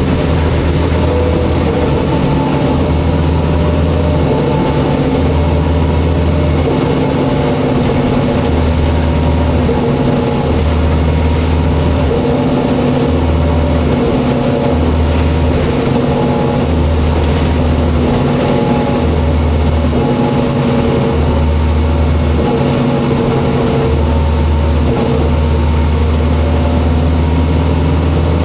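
Inside a New Flyer D40LF transit bus under way: the Cummins ISL inline-six diesel runs with a steady drone over road and tyre noise. A deep low rumble comes and goes every second or two.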